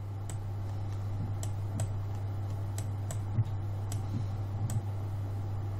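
Irregular light clicks from computer input, about two a second, over a steady low electrical hum.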